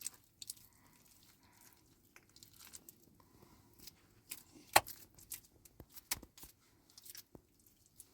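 Scattered light clicks and taps of objects being handled, with one sharp knock about five seconds in.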